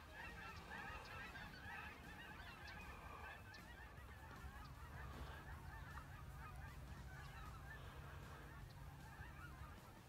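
Distant flocks of geese calling overhead: a faint, dense chorus of many overlapping honking calls, thickest in the first few seconds. A low steady hum runs underneath from about halfway.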